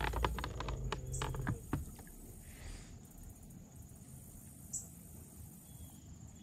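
A flurry of light clicks and knocks from fishing tackle being handled on a boat over the first couple of seconds, over a low hum that stops about a second and a half in. Then quiet open-air ambience with faint insect chirping.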